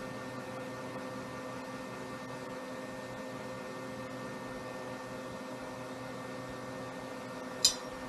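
Steady background hum with a few fixed tones, and one sharp light click near the end.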